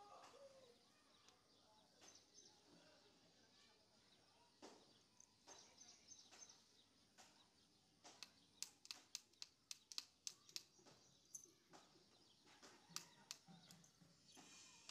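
Very quiet fingers working through hair while picking for lice, with faint rustling and scattered tiny sharp clicks. About eight seconds in comes a quick run of clicks, several a second for two or three seconds, like fingernails pinching at the hair.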